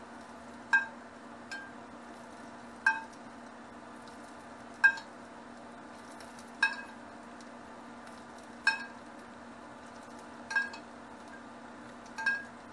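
A metal spoon clinking against a small metal pan as it scoops hot oil, a short ringing clink about every two seconds, eight in all, one much fainter. A steady low hum runs underneath.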